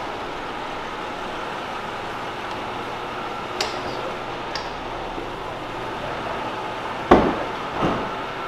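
Power convertible soft top cycling: a steady hum of the top mechanism with a couple of light clicks, then a loud thump about seven seconds in and a smaller one a second later as the top's frame and panels move into place. The top is working again after rodent-chewed CAN bus wires were repaired.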